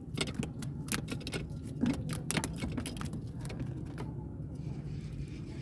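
Rapid, irregular clicking as a spinning rod and reel is handled and worked, about four or five clicks a second for the first three seconds or so, over a steady low hum.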